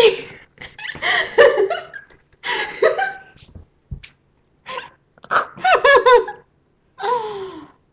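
A girl's excited squealing and laughter in repeated short bursts.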